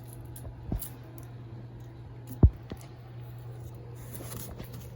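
Hands and scissors working dry leaves: faint clicks and snips with two dull thumps, a louder one about halfway through, over a steady low hum.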